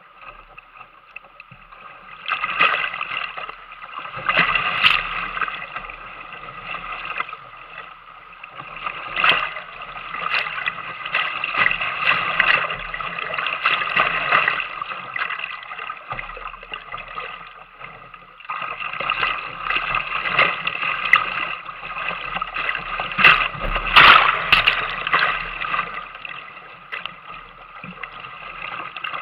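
Whitewater rushing and splashing around a kayak running a rapid, with the paddle blades splashing on each stroke and spray breaking over the bow. It is quieter for the first couple of seconds, eases off briefly about two-thirds of the way through, and the biggest splashes come near the end.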